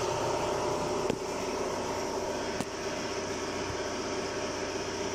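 Steady machine hum with several fixed tones, like a fan or air conditioner running, with two faint clicks about one and two and a half seconds in.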